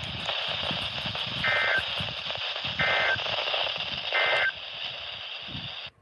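NOAA Weather Radio broadcast on a receiver, giving three short digital data bursts about 1.3 s apart over steady static hiss: the EAS/SAME end-of-message code that closes the weekly test. The sound cuts off suddenly near the end.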